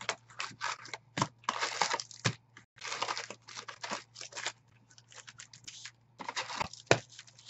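Foil-wrapped Bowman Chrome trading card packs crinkling and rustling as they are pulled out of a cardboard hobby box and stacked, in short irregular bursts.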